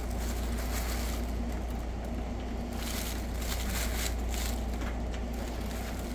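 Rustling of a fabric cat play tunnel as a cat pushes and rolls about inside it, in irregular bursts that come mostly in the second half, over a steady low hum.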